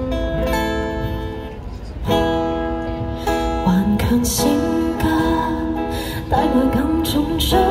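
Acoustic guitar strummed in chords as song accompaniment, with a singer's voice carrying the melody over it from about halfway through.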